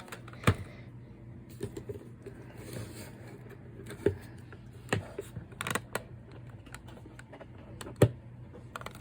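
Scattered sharp clicks and knocks, about five of them, the loudest about half a second in and near the end, over a faint low steady hum.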